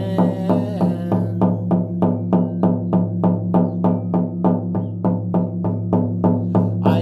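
A hand drum beaten in a steady, fast shamanic rhythm of about four strikes a second, over a steady low drone.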